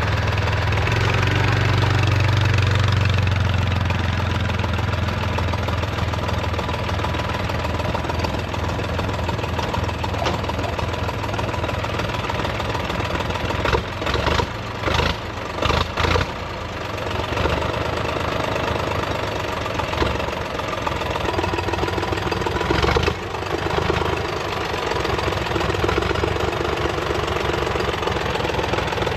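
Valmet 500 tractor's diesel engine running steadily after a long winter standstill, with a few short changes in the engine note about halfway through as the tractor sets off and drives.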